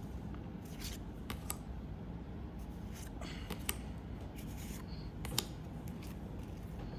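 Trading cards being handled: a few short scrapes and clicks of cards sliding against one another, over steady low room noise.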